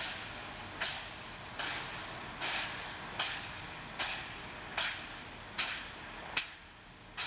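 Polish Pt47 two-cylinder steam locomotive (Pt47-65) working slowly, its exhaust chuffing at a little more than one beat a second, sharper and softer beats alternating.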